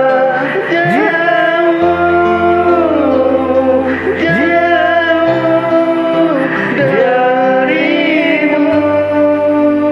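Indonesian pop song sung to a karaoke backing track: a voice holding long notes with vibrato and pitch slides over sustained bass and accompaniment.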